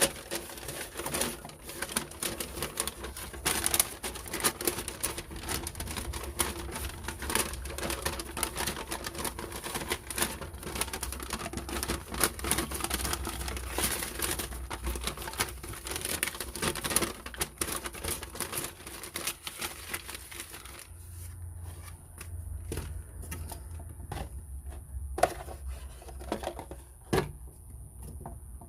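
Handling noise from unboxing a spinning fishing reel: rapid irregular clicks and rustles, dense for most of the time and then thinning to a few separate clicks, over a low steady hum.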